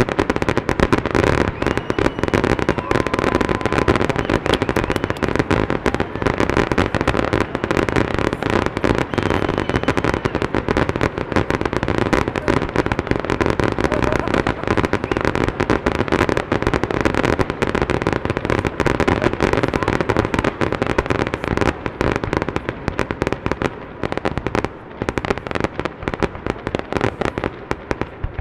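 Fireworks display: a dense, continuous barrage of bangs and crackles, thinning slightly near the end.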